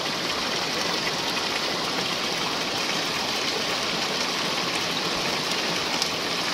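Steady rushing of flowing water over rocks.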